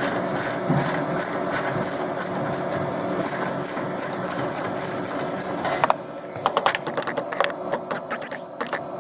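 Steady mechanical whir of running machinery, dropping in level about six seconds in, after which a run of sharp clicks and taps is heard.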